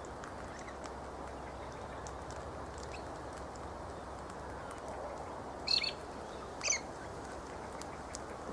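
Two short, shrill galah calls about a second apart, a little past the middle, over steady background noise with faint chirps.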